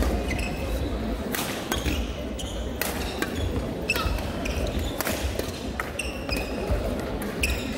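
Badminton rally: sharp racket strikes on the shuttlecock about a second apart, with short squeaks of shoes on the court floor over the steady background noise of a large sports hall.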